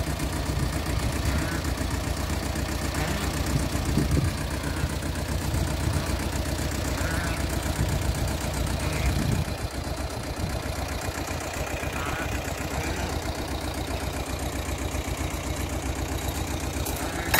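Small compact tractor's engine running steadily, then settling to a quieter idle about nine and a half seconds in.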